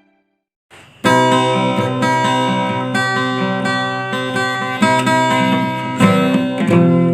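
Guitar intro of a slow rock song: ringing acoustic guitar chords, played in a steady rhythm, begin about a second in after a brief silence.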